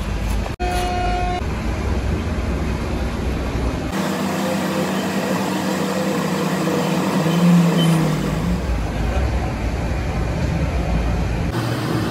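Steady engine-like rumble and noise of a busy background, its character changing abruptly at several edit cuts, with a steady hum in the middle and a brief steady tone about a second in.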